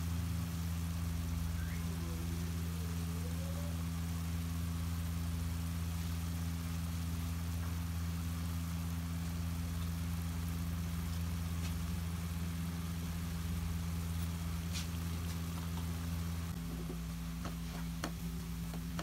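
A steady low mechanical hum, its deepest part dropping out about three-quarters of the way through. Near the end come a few light clicks of a slotted metal spatula against the aluminium frying pan.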